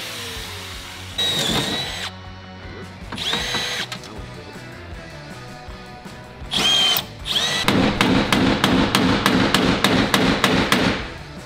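Cordless drill drilling out the steel rivets that hold a car door's window regulator. It comes in several short trigger bursts, each spinning up in pitch, then runs continuously for about three seconds with a rapid, even rattle of about six clicks a second as the bit bites into the rivet.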